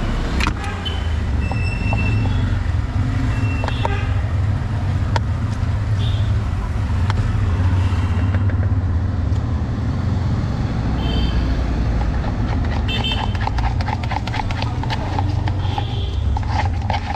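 Steady low rumble of street traffic with short horn toots every few seconds. In the last few seconds, a rapid clatter of a spoon mixing chana chaat in a plastic mug.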